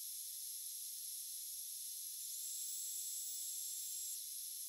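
Steady high-pitched hiss of argon gas flowing into a metal 3D printer's build chamber as it is purged of oxygen. A faint thin high tone comes in about two seconds in and stops near the end.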